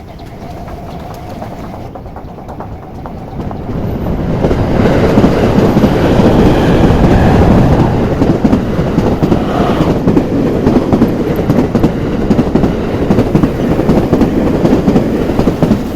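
Train passing over a level crossing: the rumble of the cars and the clatter of the wheels build up about four seconds in and stay loud and steady.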